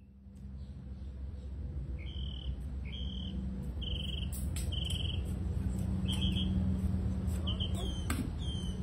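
Small birds chirping in short, high, repeated trills about once a second, some ending in quick falling notes, over a steady low hum that grows louder. There are a few sharp clicks.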